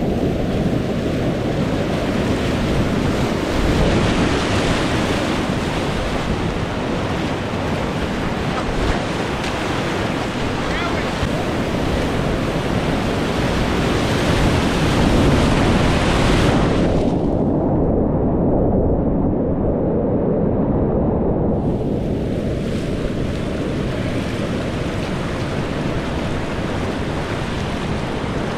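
Rushing whitewater of a river rapid, a loud, steady roar close to the microphone. About seventeen seconds in it turns muffled for about five seconds, the higher part dropping away, then comes back.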